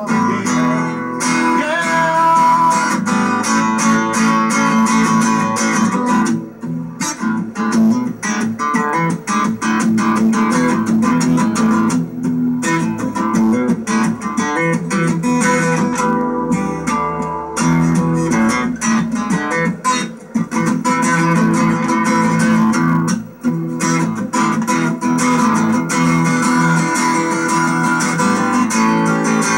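Acoustic guitar playing an instrumental blues passage, its strings picked by hand.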